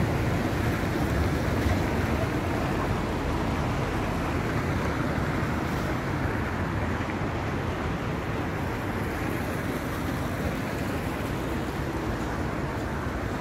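Steady rumble of street traffic and a tram pulling away into the distance, fading slowly, with wind buffeting the microphone.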